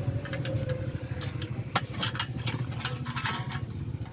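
A steady, low engine-like hum with scattered clicks and taps over it.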